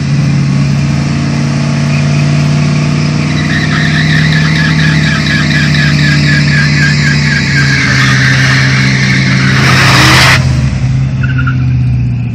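Fox-body Ford Mustang's 5.0 V8 held at steady high revs through a burnout, its rear tyres squealing in a pulsing tone through the middle. About ten seconds in there is a loud rushing burst as the car pulls forward.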